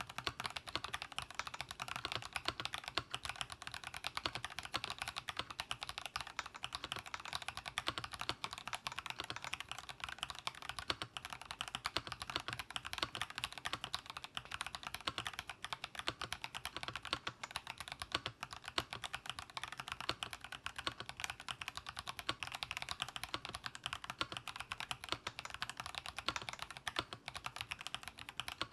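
Steady fast typing on a GEEKSTAR JK07 75% mechanical keyboard with TTC GeekSoft speed switches (1.2 mm actuation, two-stage springs) and PBT keycaps, a dense run of high-pitched clacky keystrokes.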